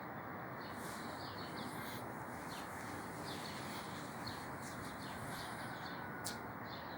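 Birds chirping in short, high, scattered calls over a steady hiss, with one sharp click about six seconds in.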